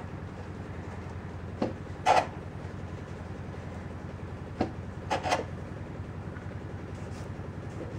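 Sandpaper pulled through a guitar's set-neck joint, sanding the neck heel to fit the body pocket: five short scrapes of wood and grit, the loudest about two seconds in. A pool cleaner's steady low hum runs underneath.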